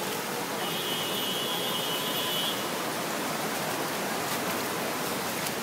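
Heavy rain pouring onto a flooded street: a steady, even hiss of rain falling into standing water.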